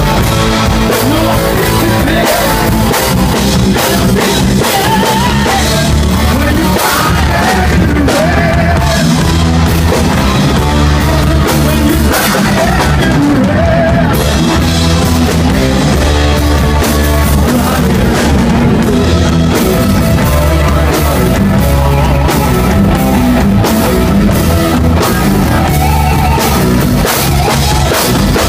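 Rock band playing live at full volume: drum kit, bass guitar, electric guitars and keyboards in a steady beat, with a melody line wavering above.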